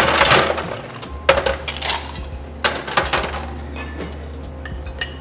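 Stainless steel bar tools, the shaker tin and jigger, clinking and knocking as they are handled and set down on the bar: about five separate metallic strikes, the loudest right at the start.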